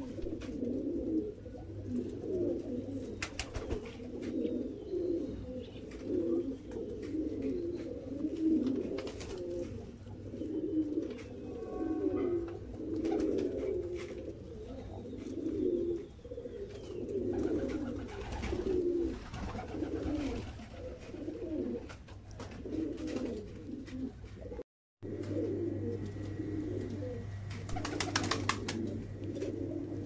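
Domestic pigeons cooing steadily, with several overlapping calls, over a low steady hum.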